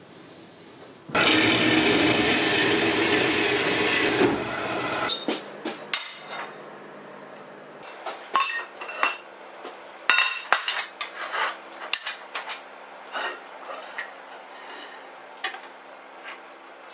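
Steel pieces clanking and knocking against a perforated steel welding table as they are set down and moved, many separate metallic hits. Near the start a loud steady rushing noise runs for about three seconds, then stops.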